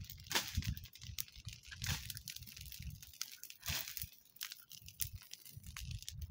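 Burning dry brush and twigs crackling, with irregular sharp pops and a few louder cracks, over a low rumble.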